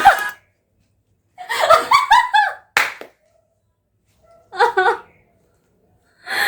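A woman's excited, squealing laughter, broken by a single sharp hand slap about three seconds in, then another short burst of laughter and a breathy sigh near the end. Music cuts off at the very start.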